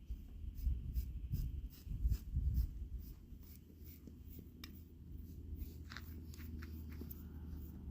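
A grooming comb or brush raking through a dog's thick shedding coat in repeated short, scratchy strokes, a few a second, over a low steady rumble.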